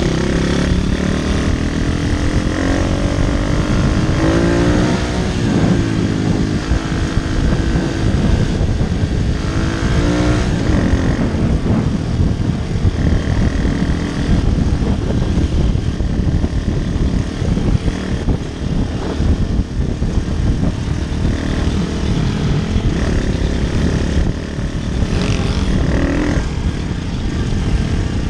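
Single-cylinder four-stroke pit bike engine running hard under way, its pitch rising and falling several times as the rider works the throttle, most clearly in the first ten seconds, with heavy wind rumble on the microphone.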